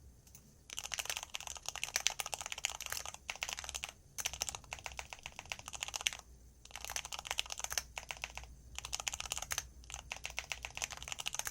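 Typing on a computer keyboard: runs of rapid key clicks broken by several short pauses.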